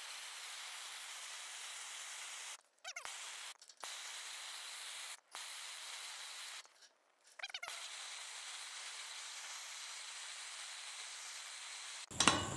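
Steady hiss of a small handheld torch flame playing on a plastic smart padlock, dropping out to silence several times for a moment.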